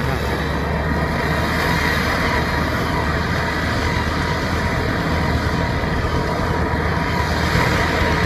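Steady engine drone and road noise from vehicles moving along a road, with a rubber-tracked rice carrier loaded with sacks running ahead.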